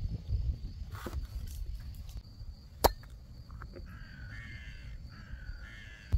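Two drawn-out bird calls, each about a second long, in the last couple of seconds, over a steady low rumble. A single sharp click comes about halfway through and is the loudest sound.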